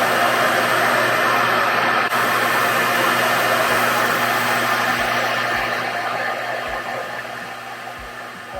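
RevAir reverse-air blow dryer running with its suction on, a steady, loud rush of air. It grows fainter through the second half.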